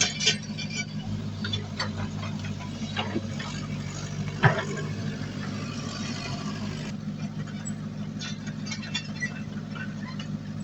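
Diesel engine of heavy earthmoving equipment running steadily, with scattered metallic clicks and a single sharp clank about four and a half seconds in.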